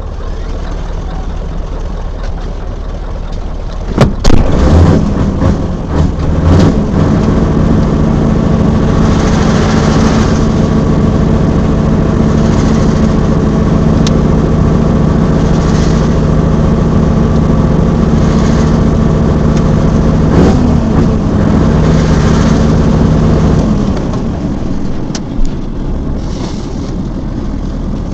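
Heavy truck diesel engine: sharp knocks about four seconds in, then a steady engine drone with short hissing bursts every two to three seconds, which drops away about 24 seconds in.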